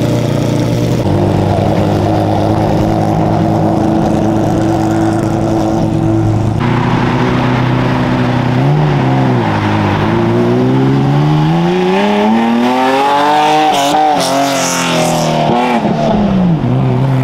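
Porsche 996 GT3 Cup race car's flat-six idling, then revving as it pulls away. The engine note rises, dips, then climbs steadily for several seconds before dropping back to idle near the end.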